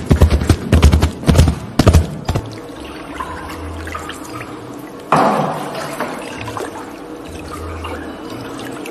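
Foley galloping hoofbeats, plunger cups pounded on gravel and straw: fast, loud thuds that stop about two and a half seconds in. Then a wooden cutting board dipped and lifted in a tub of water to mimic canoe paddle strokes: splashing and dripping, with one louder splash and pour about five seconds in.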